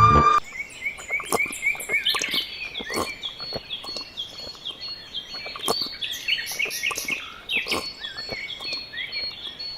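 Music cuts off just after the start, giving way to a chorus of small birds chirping: many short, quick chirps overlapping throughout. Scattered faint clicks are heard among them.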